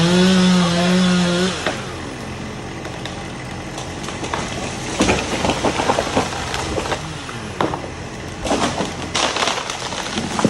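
Chainsaw running at full throttle for about a second and a half, then its pitch falls away as it is let off. Wood cracks and splinters follow, with sharp crashes clustered about five seconds in and again near the end, as of a felled tree breaking and going over.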